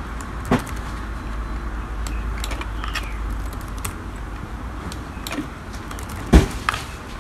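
Scattered clicks of laptop keys being pressed one or a few at a time, over a steady low hum, with one louder knock near the end.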